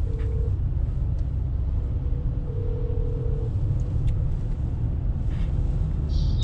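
Steady low road rumble inside a moving car. Over it, a phone's ringback tone sounds twice while a call is being placed: once briefly at the start and once for about a second a little before the middle.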